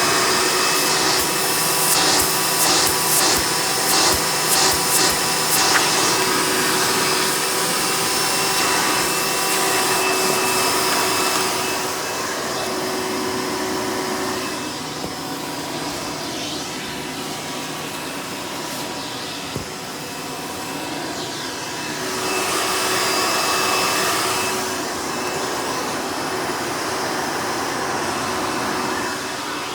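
A Hoover Elite upright vacuum with a direct-air motor runs in tool mode, drawing air through its hose: a steady whine over rushing air. The rush flutters in quick surges a few seconds in, drops somewhat past the middle, then swells again.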